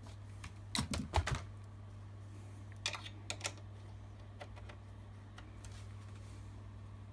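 Clicks and knocks of a coax cable connector being handled and fitted to a microwave frequency counter's input: a cluster about a second in and another around three seconds in. A steady low hum underneath.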